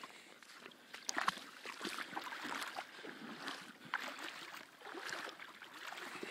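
Shallow sea water splashing and sloshing at the shoreline in irregular bursts, with sharper splashes about a second in and again near four seconds.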